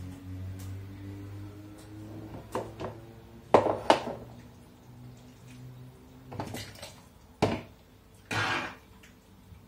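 Metal ladle and glass jars knocking and clinking against a cooking pot and a plastic funnel while hot curried courgettes are ladled into a glass jar. There are about five sharp knocks, the loudest two a few seconds in, and a short, softer wet slosh near the end as the food drops through the funnel.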